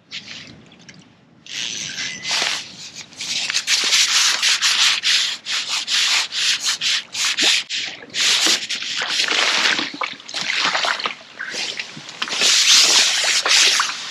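Loud, irregular rubbing and scraping in bursts, starting about a second and a half in.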